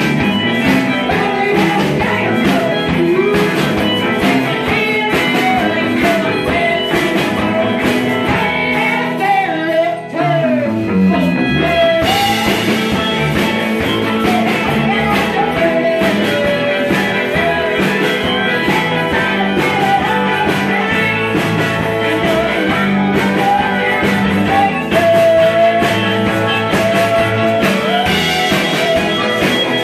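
Bluesy rock-and-roll song with a singing voice and guitar, with a brief dip and a falling slide about ten seconds in.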